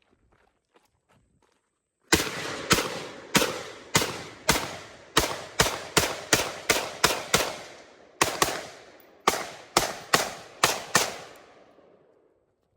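AR-15 firing 5.56 rounds semi-automatic from a drum magazine: about twenty shots in quick succession, the first about two seconds in. The pace quickens, with a short break partway through, and each shot carries a ringing echo.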